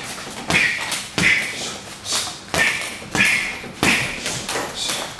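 Gloved punches landing on a hanging heavy punching bag: about six sharp thuds, unevenly spaced.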